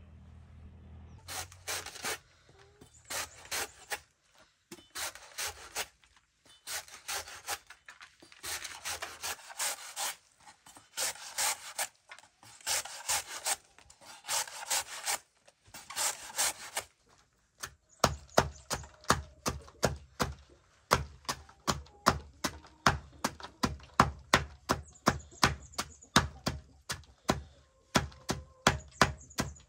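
Sawing in long rasping strokes, roughly one a second with short pauses. Past the halfway point it gives way to rapid sharp chopping blows, about three a second.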